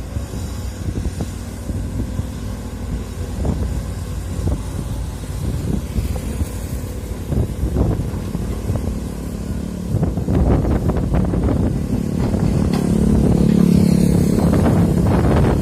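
Excavator's diesel engine running, growing louder about twelve seconds in, with a few short knocks. Wind buffets the microphone.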